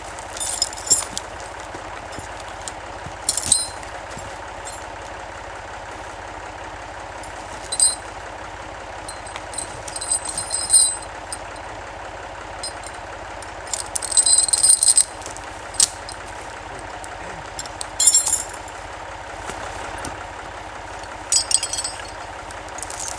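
Steel choker chains and cable-slide hooks clinking and rattling in short bursts, about eight times, as a chain is handled and wrapped around a felled log for skidding. Under them an idling Massey Ferguson 35 tractor engine hums steadily.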